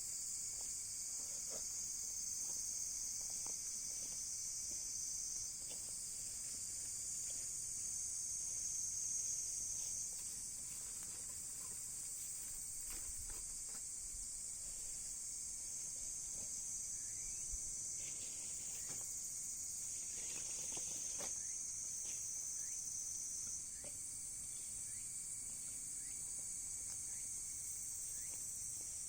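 Steady, high-pitched chorus of insects trilling, with a few faint crackles and pops from a wood fire burning driftwood.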